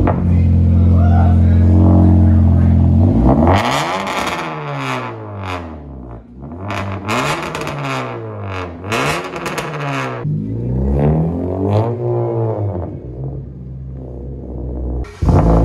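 2012 Honda Civic Si's 2.4-litre four-cylinder running through a straight-pipe exhaust: it idles, then is revved up and let fall back several times, pitch rising and dropping with each blip, before settling back to idle.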